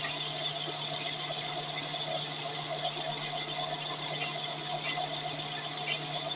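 Semi-truck flywheel turning on a lathe while a powered abrasive grinding stone resurfaces its friction face: a steady grinding hiss over a constant low hum, with a thin high whine.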